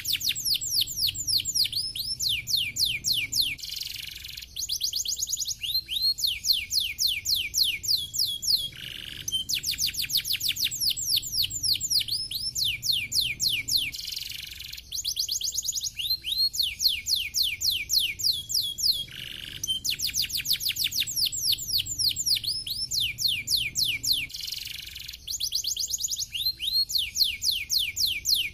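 Domestic canary singing: long phrases of rapid, high trills made of quick falling notes, broken by short pauses.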